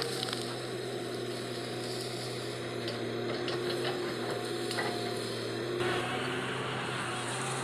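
Komatsu PC200 hydraulic excavator's diesel engine running with a steady drone. A few sharp knocks and snaps come around the middle as the bucket pushes through brush and earth.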